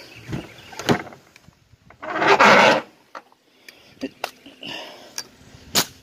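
Footsteps and rustling through long grass and weeds. A loud brushing rustle lasts under a second about two seconds in, and several sharp clicks follow in the second half.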